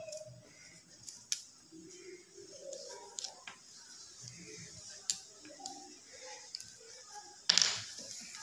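Light scratching and a few sharp ticks of a drawing tool marking out on a sheet of black paper, then a louder rustle of the paper sliding across the table about seven and a half seconds in.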